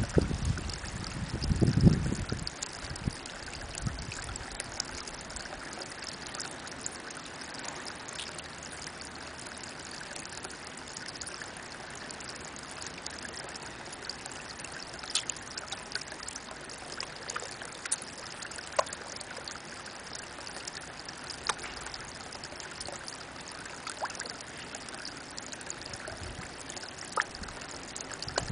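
A thin spout of spring water falls into a pond, making a steady trickling splash with scattered small drips plinking on the surface. A low rumble fills the first two seconds.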